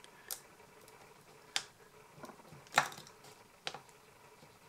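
Stanley knife blade cutting into the seam of a plastic tea light shell, giving four short sharp clicks as it breaks through the plastic, the loudest about three seconds in.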